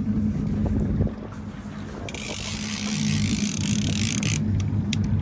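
Fishing reel being cranked in spells against a hooked halibut, its gears whirring low, stopping for a second or two and starting again, with a few sharp clicks near the end and wind on the microphone.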